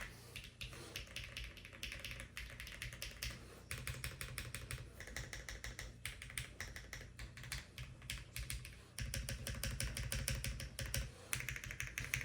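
Fast typing on a Lucky 65 V2 mechanical keyboard with HMX Film KD200 switches and no internal foam: a dense, steady stream of keystrokes.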